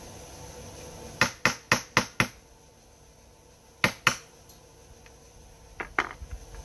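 Small hammer striking the rivets of a chainsaw chain: five quick metallic strikes about four a second, then two more a moment later, then a few lighter clicks near the end.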